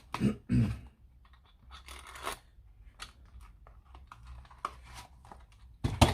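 Clicks, scrapes and rustling from a Ryobi R18ST50 cordless crown stapler and its staples being handled while the staples are loaded, with two louder knocks within the first second and a sharp click near the end.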